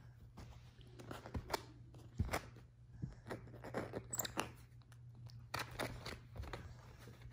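White-faced capuchin biting and clawing at a fuzzy slipper with a glittery sole: irregular scratchy crunches and sharp clicks, over a steady low hum.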